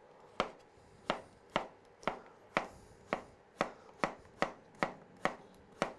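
Chef's knife slicing a courgette into diagonal pieces on a wooden cutting board, each cut ending in a knock on the board. The knocks come about two a second, then faster in the second half.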